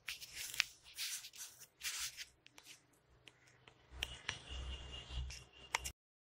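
Handling noise on the recording phone's microphone: rubbing and scuffing with several sharp clicks, then a rumble with a faint steady high tone, cutting off abruptly near the end.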